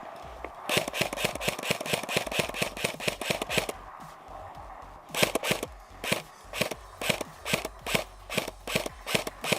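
Electronic background music: a fast drum roll for the first few seconds, then a steady, punchy beat of about two hits a second.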